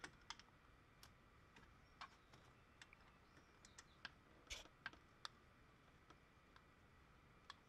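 Faint, irregular light clicks and taps of hand tools and bolts being handled in an engine bay, a dozen or so scattered over several seconds.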